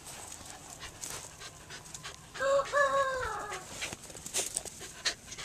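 A dog giving one loud, drawn-out call about halfway through, breaking briefly near its start and falling in pitch at the end, with small scattered clicks around it.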